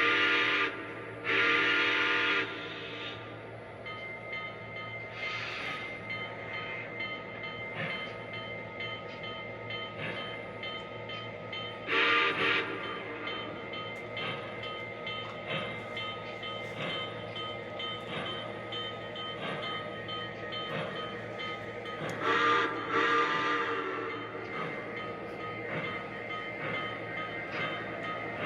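Sound-equipped model train running on the layout: a steady mechanical running sound with regular light ticks, broken by chime-like signal blasts. There is a short blast and a longer one at the start, a single blast near the middle, and two more near the end.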